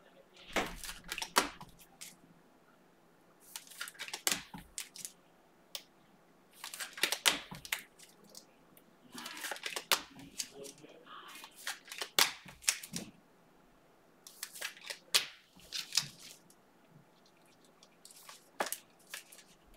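Trading card packs and cards being handled: crinkling pack wrappers and cards clicking and sliding, in short bursts every two to three seconds, with a longer rustle about nine to eleven seconds in.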